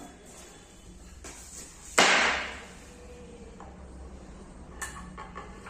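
A single sharp wooden knock about two seconds in, with a short echoing tail, as the wooden bed panel is knocked against or set down on the tiled floor; a fainter click follows near the end.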